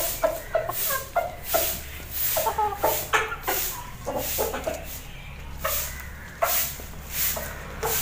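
Hens clucking in short, repeated notes while pecking at vegetable peels and chopped greens on a concrete floor, with sharp taps and rustles from their beaks on the scraps.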